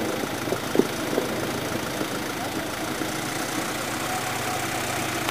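Audi 80 estate car's engine idling steadily, with a few short knocks in the first second or so.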